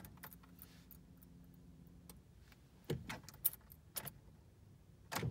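Car keys jingling and clicking in the ignition of a 2013 Honda Accord as the key is turned, with a faint steady hum for about the first two seconds. The engine does not crank, the sign of a failing starter motor.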